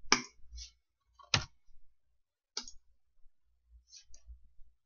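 Computer mouse clicking: about half a dozen single clicks at irregular intervals, the sharpest near the start and about a second and a half in.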